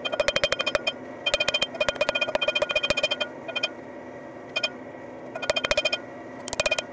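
Forging hammer striking a hot leaf-spring steel knife blade on an anvil, in quick runs of about eight blows a second with a bright metallic ring, broken by short pauses as the blade is turned: hammering in the bevels.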